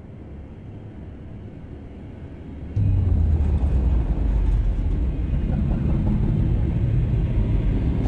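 Deep rumble from a monster-film sound effect. It fades in, then jumps abruptly much louder about three seconds in and stays heavy and low.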